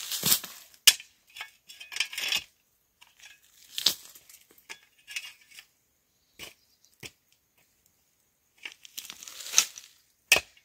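Intermittent rustling and crunching handling noises in irregular bursts, with a few sharp clicks; sparser for a couple of seconds past the middle.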